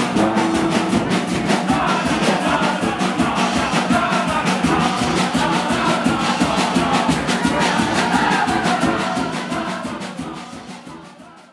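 Brass band music with horns and a steady drum beat, fading out near the end.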